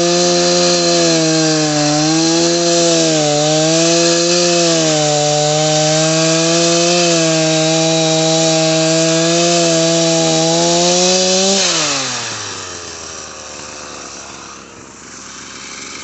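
Chainsaw running at full throttle, cutting a dead tree, its pitch dipping and recovering as the chain bites. About twelve seconds in the throttle is released and the engine winds down to a low idle.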